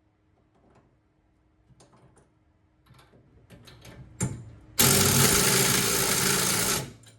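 Light clicks of parts being handled and fitted, then a power tool runs for about two seconds, driving a brake mounting bolt home, and stops sharply.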